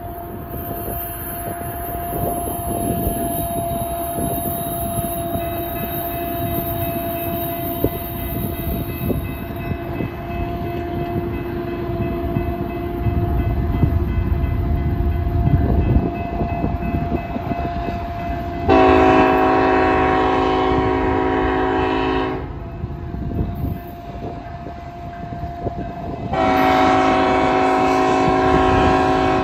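BNSF diesel locomotive leading a loaded coal train toward a grade crossing, sounding a chord air horn in two long blasts, the first about 19 seconds in and the second near the end, over the growing rumble of the approaching train. A steady electronic crossing-bell tone rings underneath.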